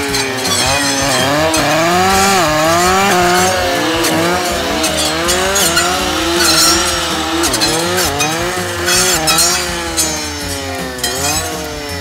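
Two-stroke brush saw (clearing saw) engine revving up and down over and over as its blade is swung through brush and small trees.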